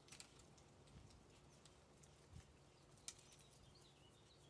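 Near silence with a few faint ticks and soft rustles, the sound of baseball cards being handled and flipped.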